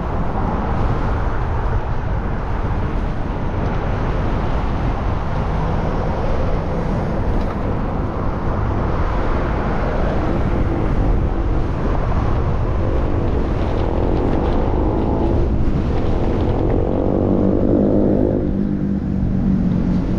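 Wind rushing over a GoPro's microphone on a moving bicycle, mixed with street traffic. Past the middle, an engine hum rises in pitch, then drops and holds steadier near the end.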